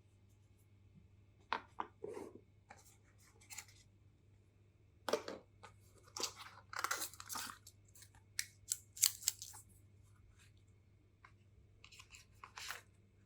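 Packaging being handled: scattered rustles and sharp clicks in short clusters, with quiet pauses between.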